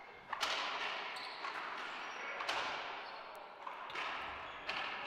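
Racquetball rally in an enclosed court: four sharp smacks of racquets hitting the ball and the ball striking the walls, about a second or two apart, each ringing out in the court's echo.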